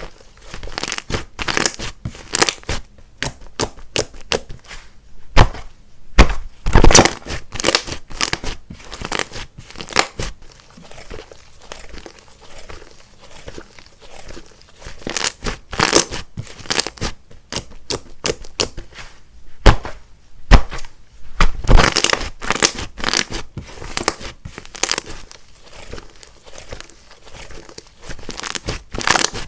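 Hands squishing, stretching and pressing a soft clay-mixed slime, making irregular sticky clicks and crackles in busy bursts with quieter stretches between.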